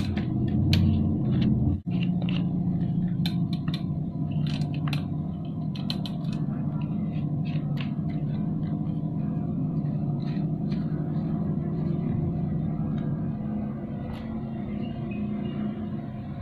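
A steady low engine-like hum, with scattered light clicks and taps over it and a brief dropout about two seconds in.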